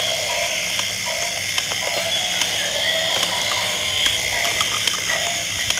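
Plastic gear mechanisms of battery-powered walking toy dinosaurs clicking and whirring as they walk, with many small irregular clicks.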